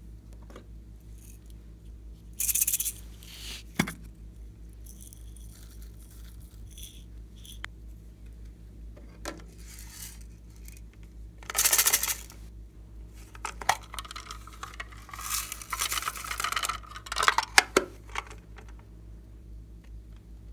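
Intermittent handling noises from slime-making: scattered clicks and small rattles with a few short rustling bursts, the loudest about three seconds in, near the middle and toward the end, over a low steady hum.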